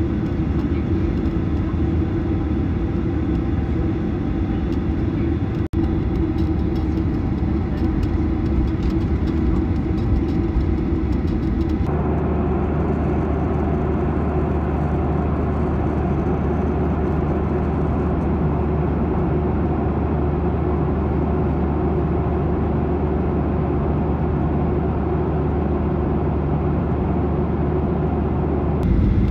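Steady drone of a jet airliner heard from inside the cabin, with a constant low hum under it. The sound briefly drops out near six seconds in and changes character about twelve seconds in.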